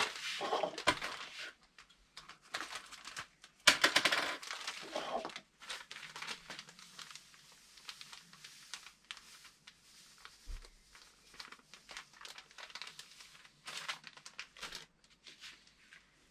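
Bag of PV1 groundbait flour rustling as it is handled, opened and scooped from. Irregular rustles, loudest right at the start and again about four seconds in, then smaller rustles that die away near the end.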